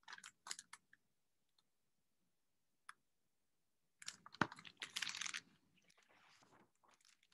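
Faint rustling and clicking as a picture book is held up and moved about, in two short clusters: one right at the start and one about four seconds in, with a single sharp click in the second.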